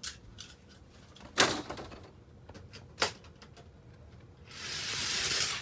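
Two sharp plastic clacks, then a die-cast toy car rolling fast down orange plastic track, a rushing hiss that builds over the last second.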